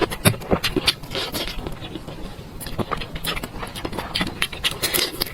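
Close-miked eating sounds: a person chewing and smacking food, heard as a quick, irregular run of wet clicks and smacks.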